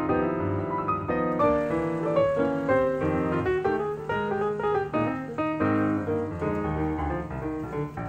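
Background piano music: a steady run of notes and chords with a regular beat.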